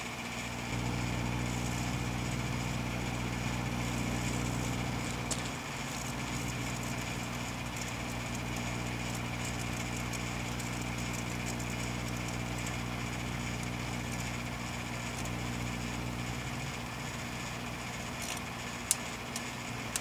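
Microwave oven running, a steady electrical hum under a constant hiss. The hum is louder for the first few seconds and drops to a lower level about five seconds in. One sharp click comes near the end.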